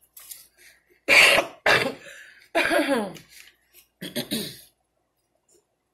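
A woman coughing and clearing her throat in a few short, loud bursts, the strongest about a second in, more around two and three seconds, and a last one about four seconds in.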